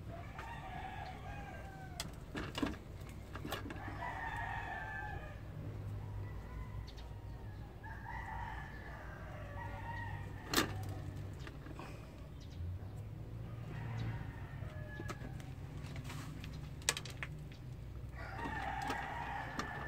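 Rooster crowing about five times, each crow a second or so long. A few sharp knocks come in between, the loudest about halfway through, as ube tubers are handled on the metal pan of a dial spring scale.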